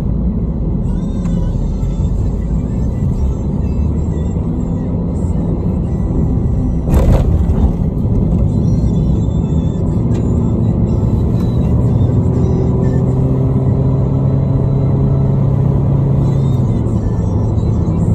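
Car driving along a highway: steady low road and engine rumble with music playing over it, and a brief louder jolt about seven seconds in.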